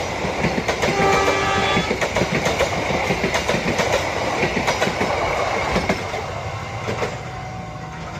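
Passenger train carriages rolling past close by, wheels clacking over the rail joints in a dense, uneven rhythm. A brief pitched tone sounds about a second in. The clatter fades after about six seconds as the last cars pull away.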